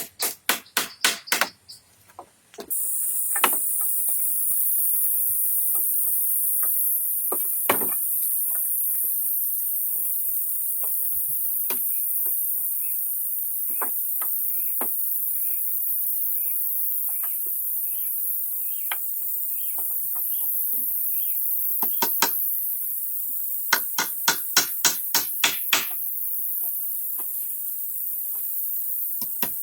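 Hand tools striking wood: a quick run of chopping or hammering blows at the start, scattered single knocks, then another fast run of blows, about five a second, near the end. A steady high-pitched hiss sets in about three seconds in and stays, and a bird calls over and over through the middle.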